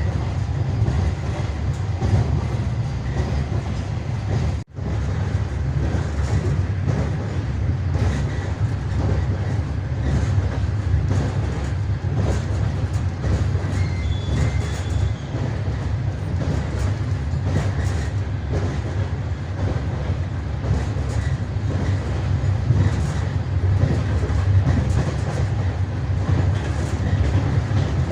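Long-distance passenger train running on the rails, with the wheels clattering over the rail joints over a steady low rumble. The sound drops out for an instant about five seconds in.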